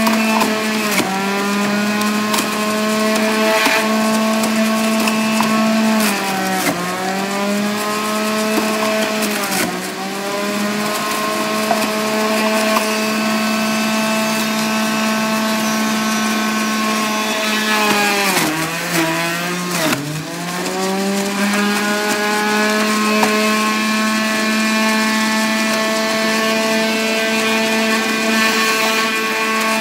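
Centrifugal juicer motor running with a steady high whine. Its pitch sags and then climbs back each time produce is pushed down the feed chute and ground, several times, about 1, 7, 10 and 19–20 seconds in.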